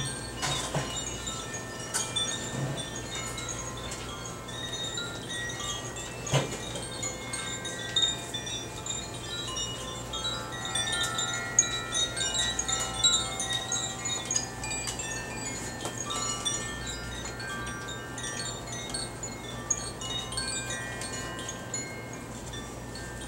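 Hand-held wind chimes, their tubes struck against each other and ringing in a scattered run of high, overlapping notes that grows busier and louder about halfway through. A few sharp knocks sound among the notes.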